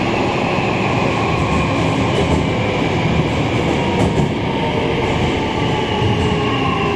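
Hankyu 9000 series electric train running, heard from inside the car: a steady, loud rumble of wheels and running noise, with faint whining tones from its VVVF inverter drive that slowly drift down in pitch.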